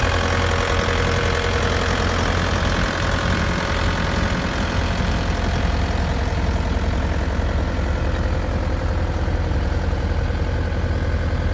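Bobcat A300 skid steer's 81 hp Kubota turbo diesel running steadily at a constant speed, a deep, even engine hum.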